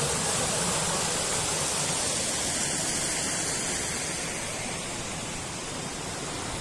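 Water rushing over the stone weirs below an old dam, at high flow with the reservoir full after heavy rain and snow. It is a steady rushing that grows a little fainter from about four seconds in.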